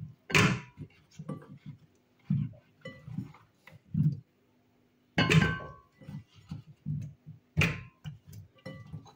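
Chunks of raw plantain dropped by hand into a blender jar: a run of irregular thuds and knocks, three of them louder, with softer knocks of fingers and pieces against a glass bowl between.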